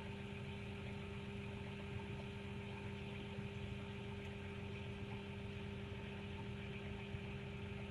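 Large farm machine's diesel engine running at a steady speed, a constant even hum with no change in pitch.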